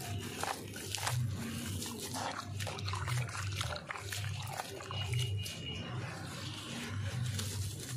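Hands crumbling dry sand-cement chunks into water and then squishing the wet slurry: gritty crackling and wet squelching, with a low pulse every half second or so as the hands press into the mix.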